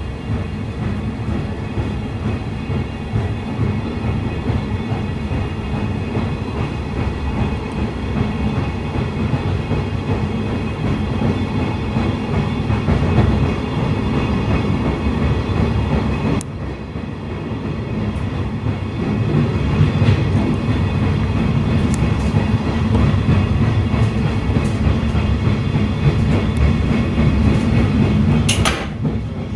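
Sleeper express train running on the rails, heard from inside the car: a steady rumble of wheels with scattered clicks over rail joints and points, growing louder about two-thirds of the way in.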